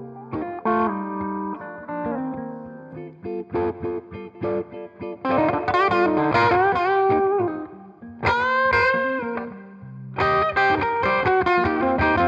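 1980 Greco EG-500 Les Paul-style electric guitar with Maxon humbuckers played through a Headstrong Royal Reverb amp. It plays picked single notes and chord fragments, then a held note bent upward about two-thirds of the way through, then busier picked chords near the end.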